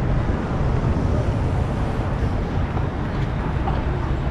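Steady city street traffic noise: a low, even rumble of cars on a busy road.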